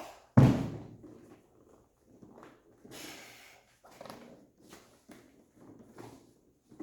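A single loud clunk about half a second in, then scattered quieter scrapes, rustles and clicks of parts being handled as a piece is taken off a bent Jeep soft-top door frame.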